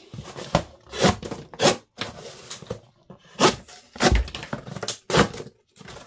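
Small single-edged pruning knife slicing through corrugated cardboard in a string of short scraping strokes, with the cardboard rustling as it is handled; a dull thump about four seconds in.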